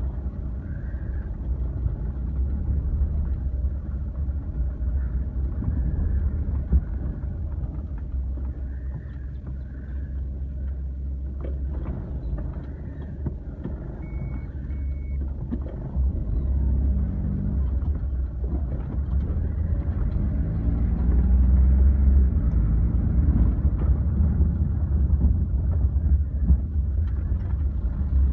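Car driving slowly on a rough town road, heard inside the cabin: a steady low engine and tyre rumble that gets louder in the last third. Two short high beeps about halfway through.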